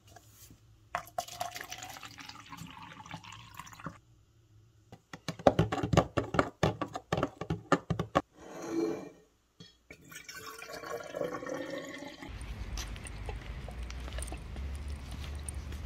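Liquid poured into a clear plastic cup, its pitch rising as the cup fills, with a clatter of clicks in the middle and a second rising pour after it. Near the end it gives way to a steady low rumble.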